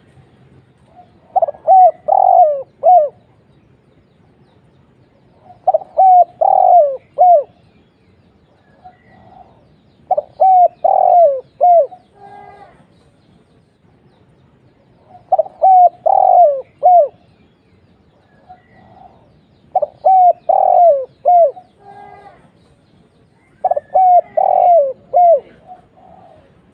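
Spotted dove (tekukur) cooing: six phrases of several short, falling coos, one about every four to five seconds.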